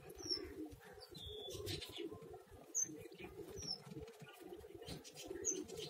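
A newly hatched chicken chick peeping a few times in short, high, falling notes, over faint low cooing of pigeons.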